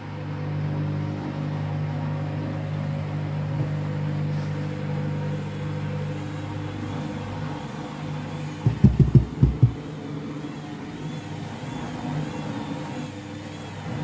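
Candy washing machine running its drum with a steady motor hum while it tries to spin a tangled, unbalanced load. About nine seconds in comes a quick run of five or six heavy thumps.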